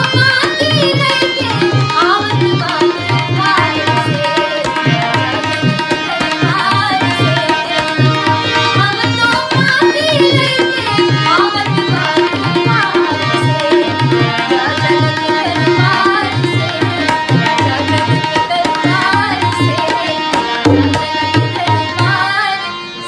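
A young woman singing an ornamented Indian melody with gliding notes, to a steady tabla rhythm, with a held note sounding underneath.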